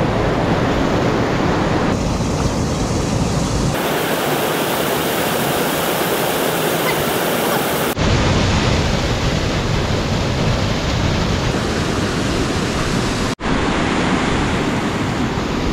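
Rushing mountain river, a loud steady rush of water. The sound changes abruptly about four and eight seconds in, with a brief dropout just after thirteen seconds.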